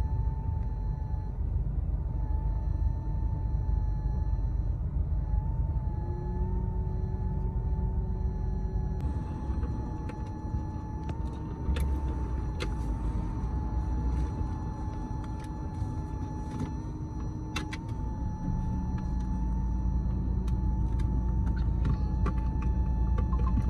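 Road and engine rumble heard inside a moving car, steady throughout, with a faint, slightly wavering high whine running through it and a few light clicks midway.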